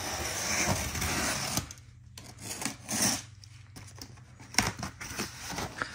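Cardboard shipping box being opened by hand: a rasping, scraping noise for about the first second and a half, then scattered rustles and knocks.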